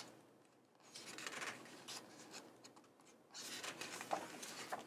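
Soft paper rustling as the pages of a hardcover picture book are handled and turned, once about a second in and again more steadily in the last second and a half.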